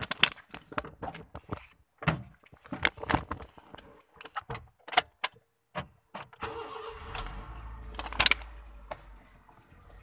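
A run of clicks and knocks from handling inside a Honda car, with keys, then about six and a half seconds in the engine is started and settles into a steady low running sound, with one loud knock shortly after.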